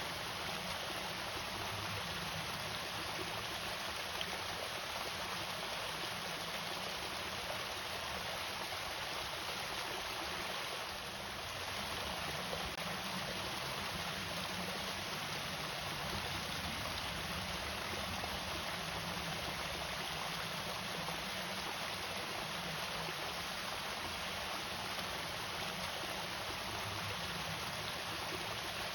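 Water from a small irrigation waterfall pouring and splashing steadily, an even, continuous rush.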